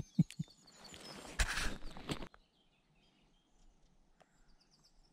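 A few sharp knocks and a brief rustle, then quiet outdoor air with a small bird giving a short, high trill near the end.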